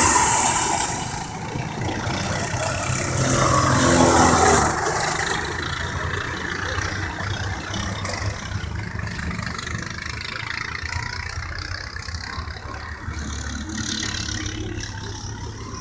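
Racing go-kart engines buzzing as karts lap the circuit. About three seconds in, one kart's engine note rises and falls as it passes, and the karts then fade to a more distant, steadier drone.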